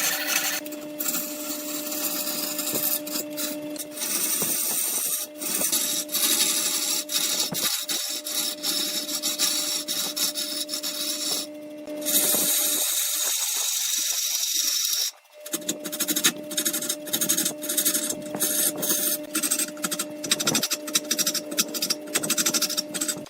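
Wood lathe running with a steady hum while a tool works the spinning wood, giving a scraping hiss broken by rapid ticks. The hum drops out for a few seconds just past the middle, then returns.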